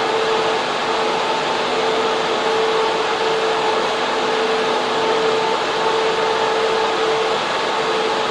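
Data center server racks and air-cooling fans running: a loud, steady rushing hum with a constant whine riding on it that drops out briefly now and then.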